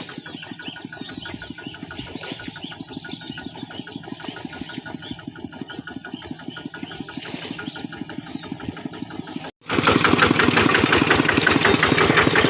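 Small engine running with a rapid, even beat. It cuts off abruptly about two-thirds of the way in and comes back much louder.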